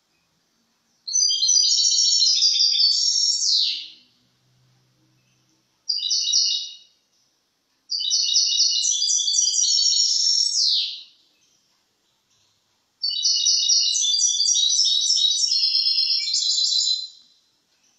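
European goldfinch singing: four bursts of fast, high twittering notes, the second one brief, with short pauses between them.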